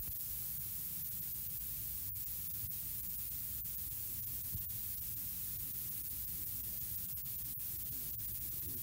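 Steady hiss with a low hum underneath: the background noise of an old lecture recording during a pause between sentences.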